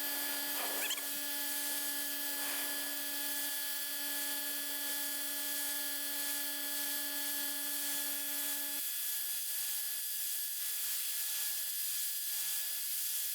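Small 1500 psi electric pressure washer running, a steady motor whine over the hiss of the water jet spraying. The lower part of the hum weakens about nine seconds in.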